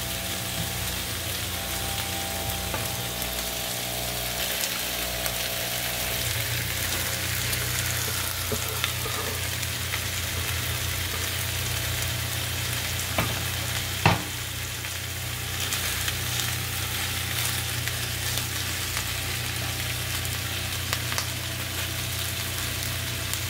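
Boneless, skinless chicken thighs sizzling steadily in a nonstick frying pan in their own rendered fat, with no oil. Sliced onion rings go into the pan on top of them, with a couple of sharp knocks around the middle, and a spatula works through the pan near the end.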